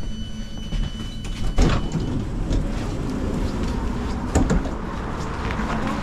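Commuter train's electric sliding passenger door opening: a steady electronic tone that stops about two seconds in, a sharp clunk as the door releases, then the door sliding open. There is a second knock about four seconds in.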